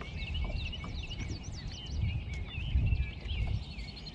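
Many small birds chirping and twittering in quick, overlapping calls, over a low, uneven rumble that swells twice in the middle.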